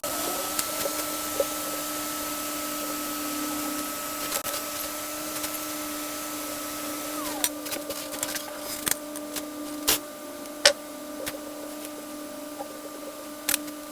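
Steady hum and whine of a small electric blower at a microsoldering bench, with a high tone that drops in pitch about seven seconds in. Scattered light clicks come in the second half.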